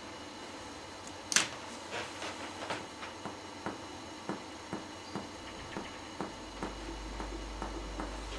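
Finger-on-finger lung percussion on a patient's back: a run of short, quiet taps, two to three a second, as the pleximeter finger is moved up from the spine of the scapula to find the height of the lung apex. A single sharper click comes about a second and a half in.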